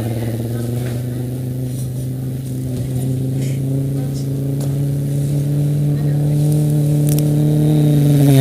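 A man's vocal imitation of a car approaching on a highway: one long, steady engine-like hum held at nearly one pitch, growing gradually louder as the car draws near.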